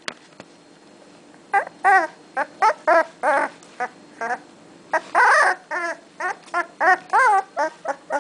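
Blue-nose pit bull puppy whimpering: a run of short, high, wavering cries, about two a second, starting about one and a half seconds in.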